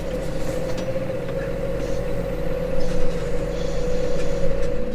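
Case Maxxum 150 tractor engine running steadily, with a steady whining tone over the engine note.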